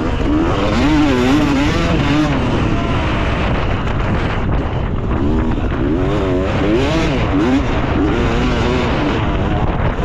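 Yamaha YZ250 two-stroke motocross engine being ridden hard, its pitch rising and falling over and over as the throttle opens and closes, over a constant rush of noise.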